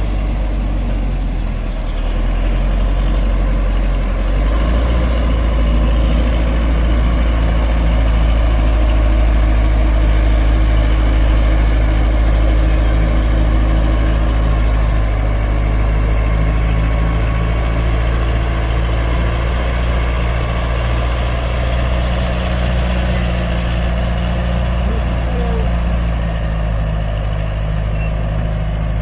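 Diesel engine of a heavy earthmoving machine running steadily, a continuous low drone that grows louder about four seconds in as the engine takes on more load.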